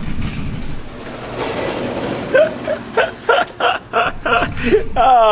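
A UPS delivery truck driving up, its engine and road rumble swelling over the first two seconds. From about two seconds in a man laughs, a quick run of short laughs.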